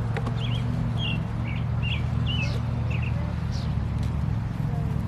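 Small songbird chirping in a quick series of short, twisting notes over a steady low hum.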